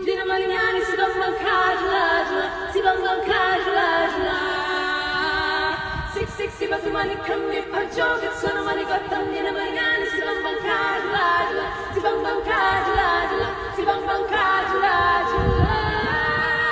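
Three women singing an Indonesian regional song a cappella in close harmony, holding long chords with sliding notes, with heavy reverb added in editing.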